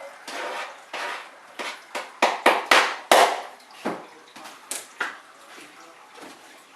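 A kitchen utensil working onions: a dozen or so irregular scraping and knocking strokes, about two a second, loudest around the middle and tapering off near the end.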